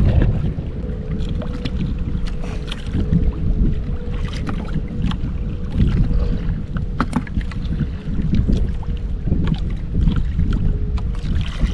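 Wind buffeting the microphone and water lapping against the hull of a small outrigger fishing boat drifting on choppy sea, with scattered light clicks and knocks as fishing line is handled. A faint steady hum sits underneath, coming and going.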